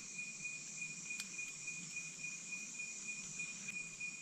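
Insects calling steadily: one constant high tone with a fainter high hiss above it, and a faint tick about a second in.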